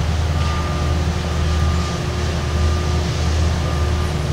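Heavy vehicle engine running steadily with a deep low hum, and a thin high whine that comes and goes every second or so.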